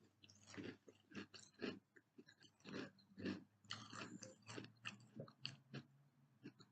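Close-up chewing of a mouthful of Froot Loops with Marshmallows cereal: soft, irregular crunches, several a second, with a faint steady low hum underneath.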